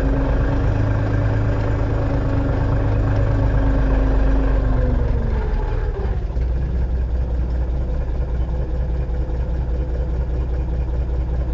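Steyr 955 tractor's diesel engine running at raised revs, then its revs falling away about five to six seconds in and settling into a steady idle.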